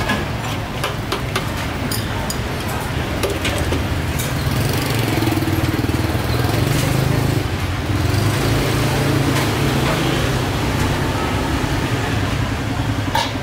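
Steady low hum of vehicle engines running nearby, swelling a little in the middle, with a few sharp clicks in the first few seconds.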